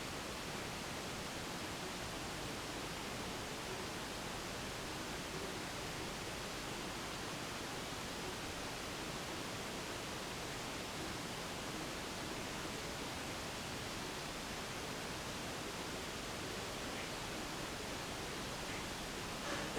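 Steady, even hiss with no knocks, creaks or ringing from the floor above.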